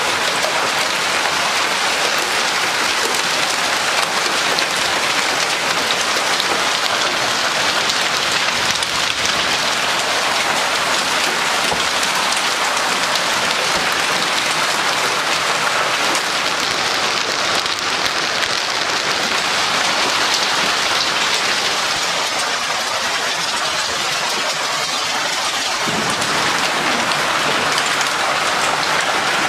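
Hailstorm: large hailstones and rain falling hard, a dense, steady hiss of countless impacts on roofs and ground, driven by gale-force wind.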